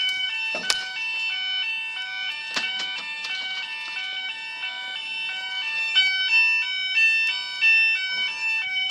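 Level crossing audible warning alarms sounding: several overlapping electronic tones stepping back and forth between pitches in a continuous warble.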